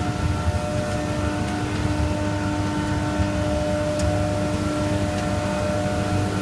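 RTP pipe extrusion line running: a steady machine hum with several constant whining tones over a low rumble.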